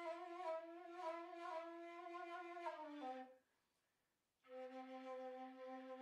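Faint background music of long held notes on a wind-instrument sound: one note slides down and breaks off about halfway through, a second of silence follows, then a lower note is held.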